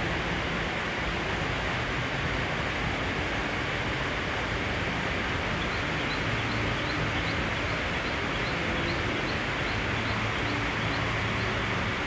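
Steady rain falling, an even hiss that does not change. From about halfway through, a faint high chirp repeats rapidly.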